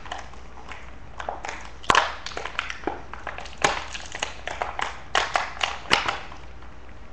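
Hard plastic toy packaging being handled and pried at: irregular clicks and crackles, with louder sharp snaps about two seconds in, near the middle, and several in quick succession near the end.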